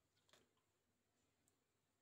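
Near silence, with a faint click of a metal spoon against a clay bowl about a third of a second in.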